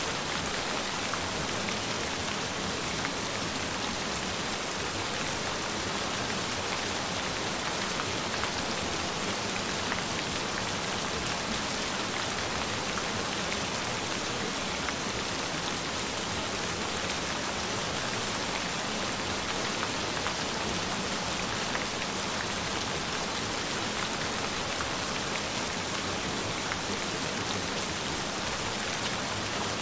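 Gentle rain falling steadily: an even hiss with a fine patter of individual drops, unchanging throughout.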